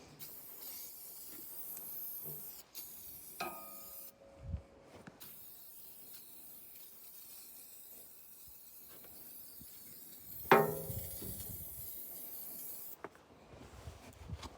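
A steady hiss, broken off briefly about four seconds in, with two metallic clanks that ring for a moment, about three seconds in and again, louder, about ten seconds in.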